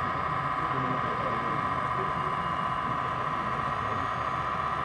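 Steady drone of a sound-fitted model ČD class 810 railbus's diesel engine sound, running without change, over a low murmur of people talking.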